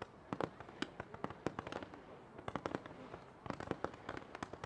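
Fireworks display going off: a rapid, irregular series of sharp bangs and pops, several a second, with a brief lull about two seconds in.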